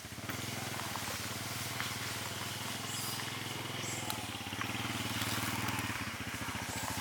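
Small engine, like a motorbike's, running with a rapid low pulse; it speeds up slightly just after the start and settles back down about four and six seconds in.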